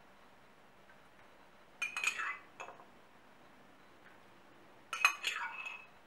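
A metal tablespoon clinking against a small glass jar as it scoops from it: two short rattling runs of clinks about three seconds apart.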